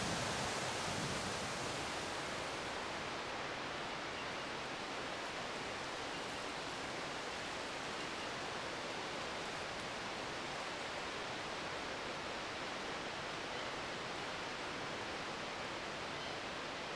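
Steady rushing noise of the Taughannock Falls waterfall, its highest hiss easing off slightly about two seconds in.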